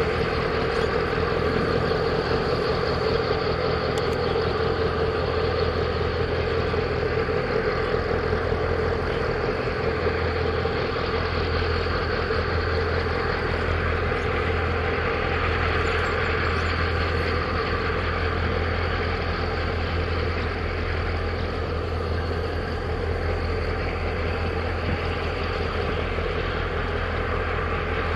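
Steady low engine drone from a large container ship's diesel engines and its escort tug, with a constant hiss over it.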